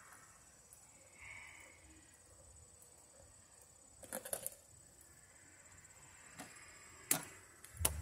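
Faint steady high-pitched insect drone, with a quick cluster of metallic clicks about four seconds in and a few single clicks near the end as hand tools are pulled from a belt tool pouch.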